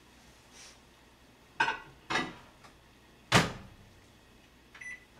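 Microwave oven being loaded and started: two clunks, then the door shut with a loud thud about three seconds in, followed near the end by a short electronic keypad beep.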